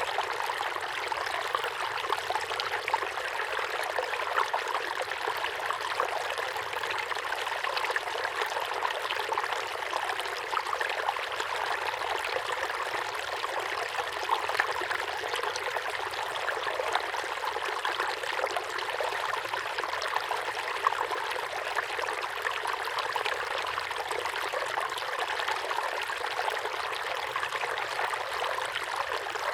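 A small waterfall pouring steadily into a pond, a continuous splashing rush with many small droplet splashes.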